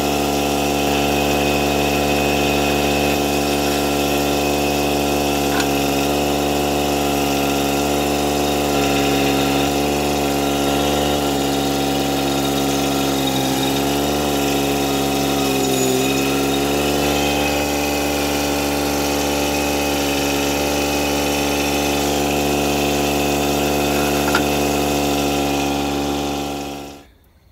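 Toro Dingo compact utility loader's engine running steadily as it drives with a cube of bricks on its forks. Its pitch dips briefly about halfway through, and the sound stops suddenly near the end.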